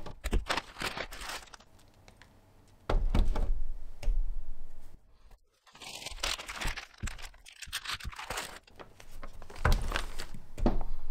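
Plastic storage bags crinkling and rustling as filament spools are handled, with a few knocks of spools on the tabletop.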